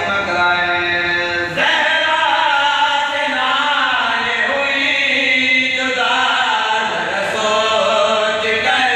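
Men's voices chanting a sung religious recitation into a microphone, in long held notes with a new phrase starting about a second and a half in.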